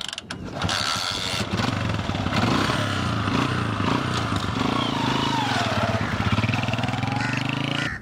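Small four-stroke Honda motorcycle being kick-started: a few clanks of the kick lever, then the single-cylinder engine catches about a second and a half in and runs steadily.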